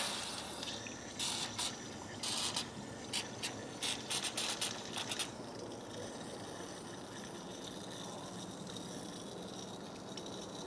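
Short squirts from a WD-40 aerosol can, sprayed into the insides of sockets: a run of brief hissing bursts of uneven length over about the first five seconds. After that only a faint steady hiss remains.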